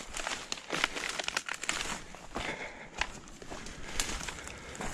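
Footsteps crunching through dry fallen cane leaves and stalks: a continuous crackling and rustling, broken by sharp snaps of breaking stems.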